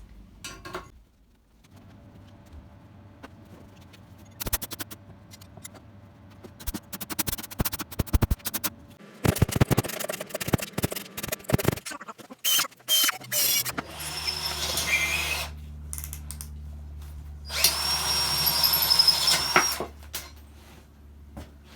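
MIG welder with mild steel wire and CO2/argon gas run in short bursts on a cast iron exhaust manifold: an irregular crackling arc, then two longer hissing runs over a steady machine hum near the end.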